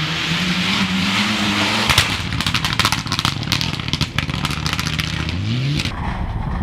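Rally car engine revving hard and climbing in pitch as the car accelerates. About two seconds in comes a sharp crack, followed by a rapid run of sharp cracks and clatter over the engine, which rises again before the sound changes abruptly near the end.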